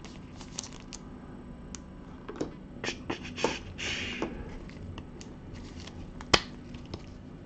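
Gloved hands sliding a trading card in a plastic sleeve into a rigid plastic holder: soft rustles, scrapes and light clicks, with a brief scrape a few seconds in and a sharper click about six seconds in.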